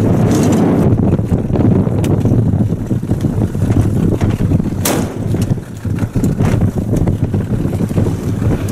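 Wind buffeting the microphone over the low, steady rumble of a small open boat on the sea. A single sharp click or knock comes about five seconds in.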